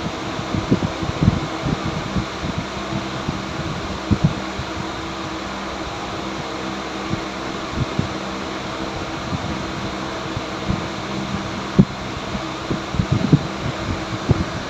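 Steady whirring hum of a fan, with scattered light knocks and taps, more of them near the start and near the end.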